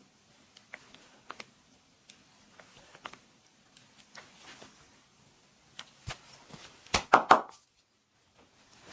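Hands working on a body during a massage: scattered light taps and clicks, then a quick run of four or five loud smacks about seven seconds in that cuts off abruptly.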